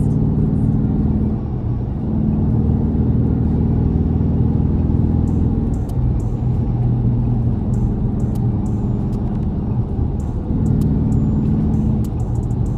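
Dodge Charger driving, heard from inside the car: a steady engine and road rumble whose pitch shifts a few times as the speed changes, with a few faint light clicks.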